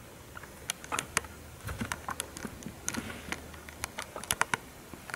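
A guinea pig scampering on carpet: light, irregular ticks and taps from its feet and claws, several a second.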